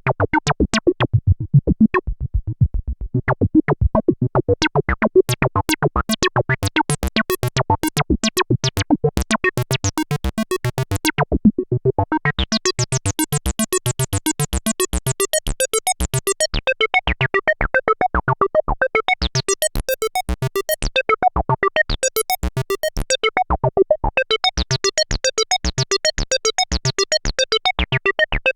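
Arturia MicroFreak synthesizer playing a sequenced acid bassline: a fast, even run of short repeating notes. Its filter opens and closes over several seconds at a time, so the notes turn bright and squelchy, then dull again, about a third of the way in and again in the second half.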